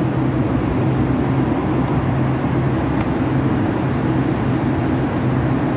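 Steady low mechanical drone with a constant hum, as from running machinery, unchanging throughout.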